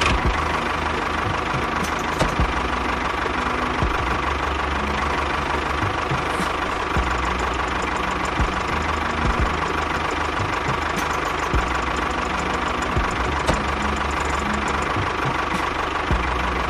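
A small motor running steadily, with a hum and irregular light knocks.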